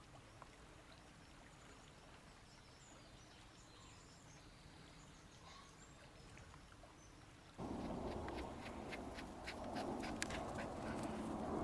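Faint birds chirping over a quiet outdoor background. About three-quarters of the way through, a sudden, much louder rustling of the camera being moved and handled over grass begins, with a quick run of sharp ticks.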